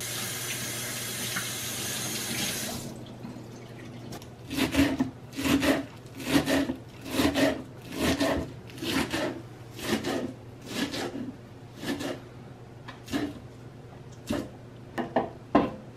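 Kitchen tap running as a bunch of Italian parsley is rinsed under it, stopping after about three seconds. Then a knife chopping the parsley on a wooden cutting board in short, even strokes, about two a second.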